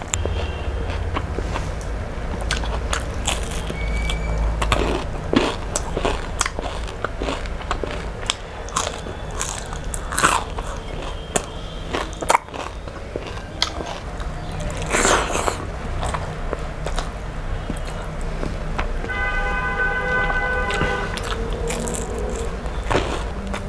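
Close-up chewing and biting of fried fish and rice eaten by hand: wet mouth clicks, smacks and occasional crunches.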